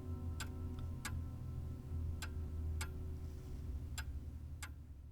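Grandfather clock ticking in an uneven tick-tock, six ticks in pairs, over the low, lingering ring of its strike slowly dying away.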